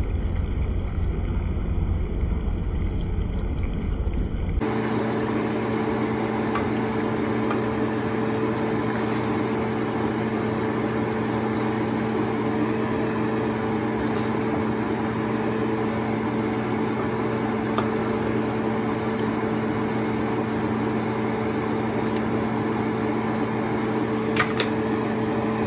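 Steady fan-like hum and hiss over a pan of pork afritada simmering on the stove, with a few faint clicks of a wooden spatula. About five seconds in the sound shifts from a dull, muffled rumble to a fuller, higher hum.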